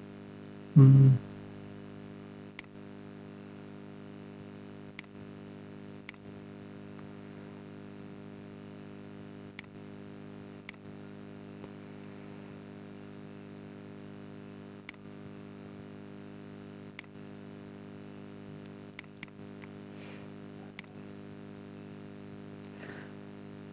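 Computer mouse clicks, about a dozen single clicks spaced a second or more apart, over a steady electrical hum. A short vocal sound about a second in.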